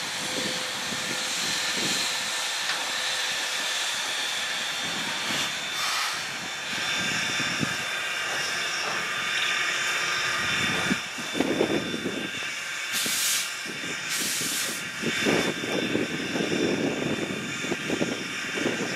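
Baldwin 2-10-0 steam locomotive drifting in slowly and stopping, with steady steam hissing from it. Two brief, louder bursts of hiss come about two-thirds of the way through.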